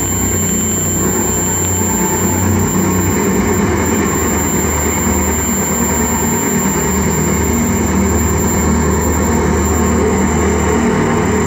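Experimental noise music played live on a tabletop electronics rig through a PA: a loud, steady wall of noise over a low droning hum, with no beat.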